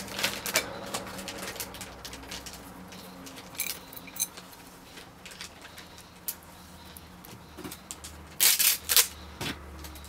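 Small metallic clicks and taps as steel grub screws are started by hand into the pin chambers of a euro lock cylinder, with a louder run of clicks near the end. A faint low hum runs underneath.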